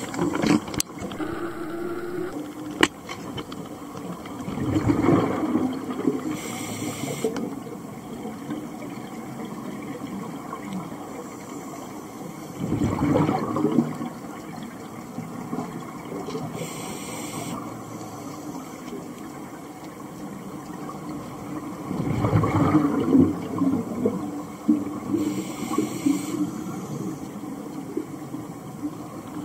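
Scuba regulator breathing underwater: three rushes of exhaled bubbles about eight or nine seconds apart, each followed a second or two later by a short hiss of inhalation, over a steady underwater wash. A sharp click about three seconds in.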